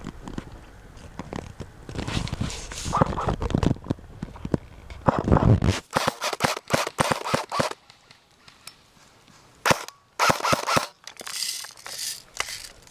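Airsoft guns firing in several rapid bursts of sharp shots from about six seconds in, after a few seconds of rustling movement.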